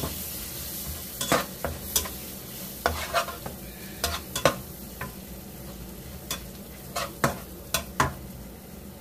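Spice paste with lemongrass, lime leaves and galangal sizzling in hot oil, while a utensil stirs it, scraping and tapping against the pan at irregular moments over the steady sizzle.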